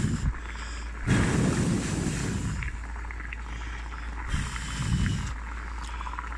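Water at a vigorous rolling boil in a cast-iron skillet, bubbling and crackling steadily. A low rumble swells twice, about a second in and again near five seconds.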